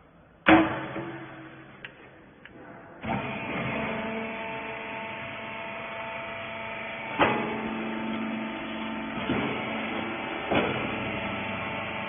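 A loud metal clank about half a second in. About three seconds in, a horizontal hydraulic rag baler's electric motor and pump start and run with a steady hum, with three short knocks as the press works.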